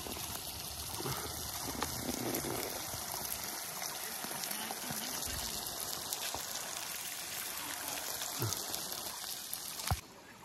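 Steady rush of a flowing river, with a few sharp crackles from a wood cooking fire. The water noise cuts off abruptly near the end.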